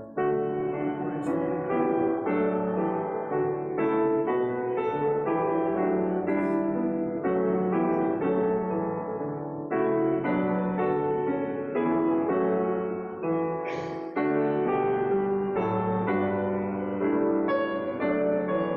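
Piano playing slow, sustained chords, a new chord about every second.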